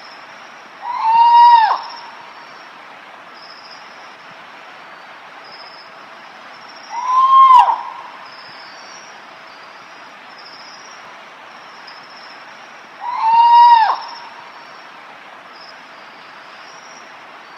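Spot-bellied eagle-owl giving its 'devil bird' (Ulama) call: three loud wailing notes about six seconds apart. Each is about a second long, arching up slightly and then falling away at the end. Behind them runs a steady hiss with faint high chirping.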